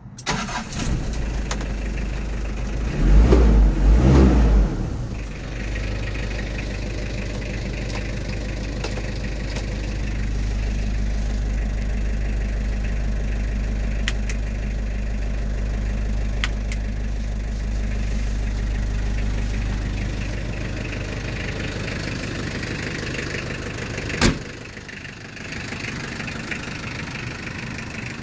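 Nissan LD20 2.0-litre naturally aspirated diesel starting, then idling steadily, with a brief loud rev a few seconds in. A sharp knock comes near the end, after which the idle sounds quieter.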